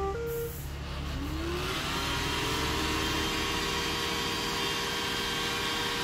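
iRobot Roomba 890 robot vacuum giving a few short beeps as it starts, then its vacuum motor and brushes spinning up with a rising whine into a steady whirring hum.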